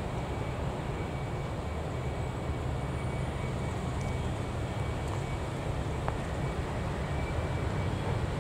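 Steady low rumble of vehicle engines and road traffic passing close by.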